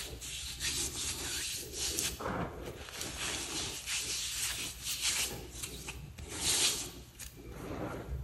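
Hands rubbing and crushing crumbled pasted chalk powder in a bowl: a dry, gritty, crunchy scraping in irregular swishing strokes, the loudest stroke about six and a half seconds in.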